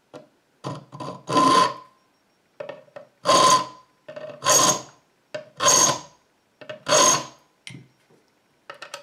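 Hand file cutting a pin notch into a steel key blank clamped in a vise: five long, loud strokes about one every second, each with a ringing metallic note, with lighter scrapes and taps between them.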